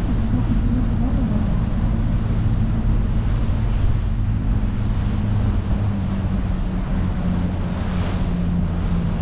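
Sightseeing boat's engine running steadily at cruising speed, with wind on the microphone and the rush of the wake along the hull. A brief louder rush of noise comes near the end.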